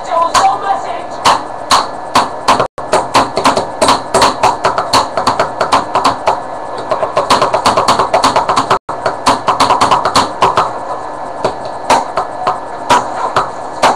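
Makeshift drumming on household objects: a fast, busy run of taps and knocks in a beat-like rhythm. The sound cuts out for an instant twice.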